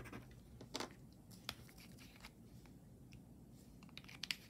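Quiet room with a few faint, light clicks and ticks of small metal hoop earrings being handled, two of them close together near the end.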